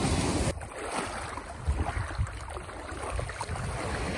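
Shallow sea water sloshing and splashing as a child wades through it pushing a prawn net. It opens with a short rush of noise that stops abruptly about half a second in.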